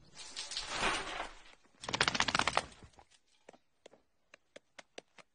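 Faint, short rustle, then a quick run of clicks that thins out into scattered single ticks.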